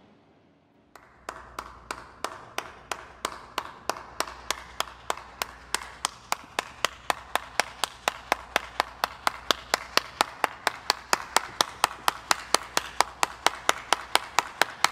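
A single person clapping: a slow clap that starts about a second in at roughly three claps a second, then gradually speeds up and gets louder.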